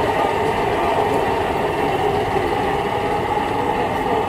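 Midland Red S15 bus's diesel engine running steadily at low revs as the bus pulls slowly forward and turns.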